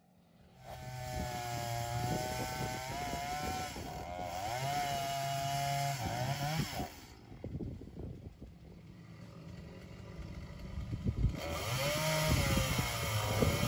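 A small petrol engine running with a wavering pitch, easing off about seven seconds in and building again near the end.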